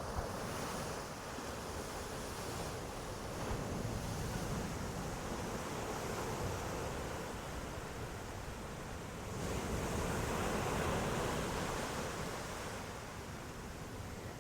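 Ocean surf: waves washing in continuously, the rush rising and falling, with a bigger wave swelling up about ten seconds in.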